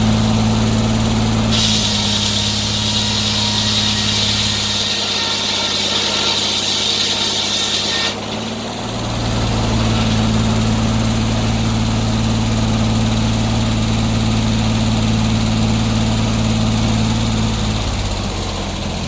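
Portable sawmill engine running steadily. About a second and a half in, a loud high hiss starts and cuts off sharply some six seconds later, while the engine's deep note dips for a few seconds before settling back.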